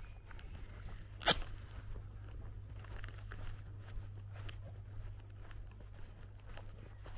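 Footsteps through long grass, with scattered small crunches and clicks and one sharp crack about a second in.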